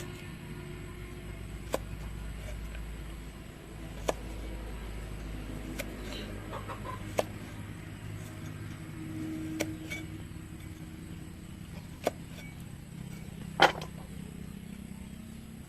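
Chickens clucking against a steady low background, with short sharp knocks every second or two; the loudest knock comes near the end.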